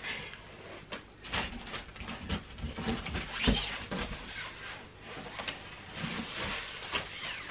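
Cardboard shipping box being lifted and slid off a plastic-wrapped, rolled mattress topper: rustling plastic and scraping cardboard with several soft thumps, the strongest about three and a half seconds in.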